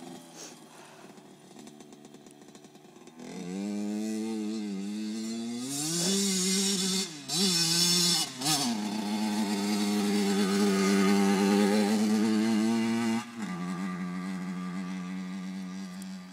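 Kawasaki KX80 dirt bike's two-stroke engine, faint at first, then revving up and down with brief throttle cuts, holding high revs, and dropping suddenly to a lower, steady note about three seconds before the end.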